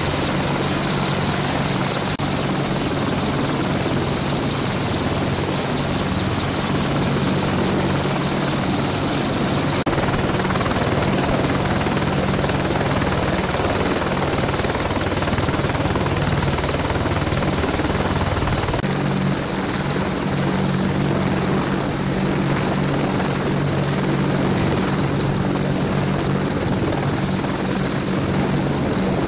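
AH-64 Apache helicopter running on the ground with its rotors turning: the twin turboshaft engines and rotor blades make a steady, loud drone with a high turbine whine over it.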